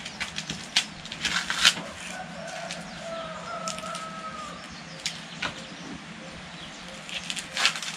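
Green corn husks being torn off ears of corn by hand: sharp crackling rips at irregular moments, the loudest about a second and a half in and near the end. A rooster crows faintly in the background, one long call from about two seconds in.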